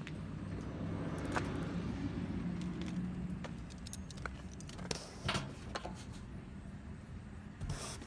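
Vehicle engine running with a low, steady hum that swells about a second in, with several sharp clicks and rattles.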